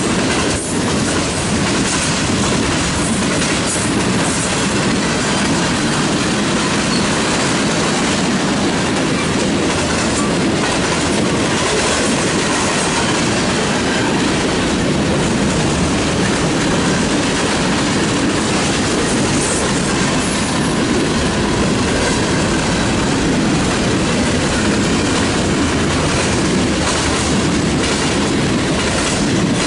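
Freight cars rolling past close by: a steady, loud rumble of steel wheels on the rails, with a running clickety-clack of the wheels over the track.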